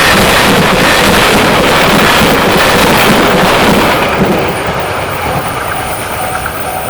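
Passenger train passing a level crossing at speed: a loud rush of wheel and rail noise for about four seconds that then eases off. Near the end, the crossing's electronic alarm bell is heard again, ringing its repeating 'kan-kan'.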